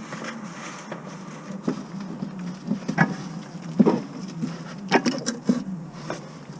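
A handful of sharp, separate knocks and clinks, like hand tools striking metal during work on a car, over a steady low hum.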